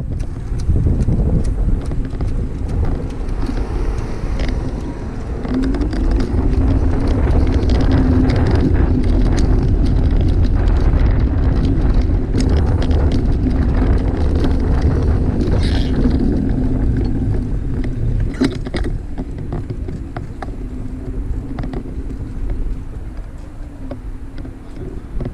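Wind rumbling on the microphone while moving outdoors, with a steady motor hum that comes in about five seconds in and fades out near the end, and scattered small clicks.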